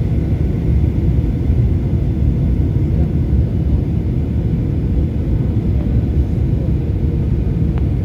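Cabin noise aboard a Boeing 737-800: a steady, loud low rumble of the engines and rushing air.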